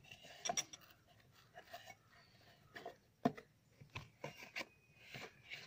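Cardboard box flaps being folded shut over packed drinking glasses: faint rustling of the cardboard with a few light taps.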